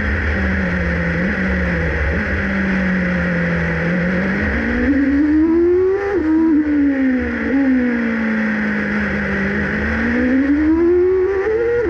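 Formula 1 car engine heard close up from onboard, running at low revs at street pace. The revs climb to a peak about six seconds in, drop back, and climb again near the end.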